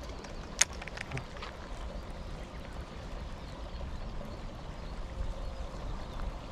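Wind buffeting the microphone as a steady low rumble. A single sharp click comes about half a second in, followed by a few fainter ticks.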